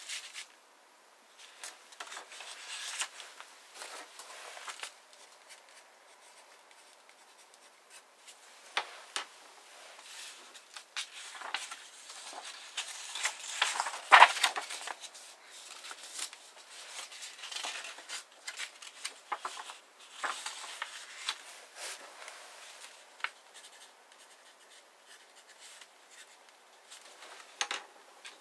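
Paper being handled on a wooden bench: folded book sections and marbled endpapers rustling, sliding and being turned in irregular bursts, the loudest about halfway through as a sheet is lifted and turned over.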